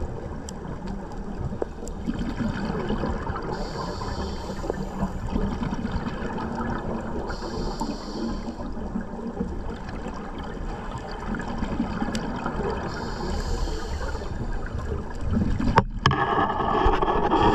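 A scuba diver's regulator breathing, heard through an underwater camera: a hiss every few seconds over a steady rumble of water and bubbles. Near the end there is a click, then louder bubbling.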